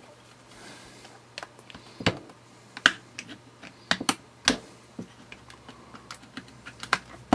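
Screwdriver prying apart the glued seam of a plastic solar power bank case: about a dozen irregular sharp clicks and snaps as the adhesive seal gives way, the loudest about three seconds in and right at the end.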